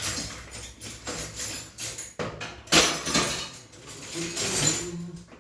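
Clattering and knocking of hard objects being shifted and rummaged through, a run of irregular knocks with one loud bang about three seconds in.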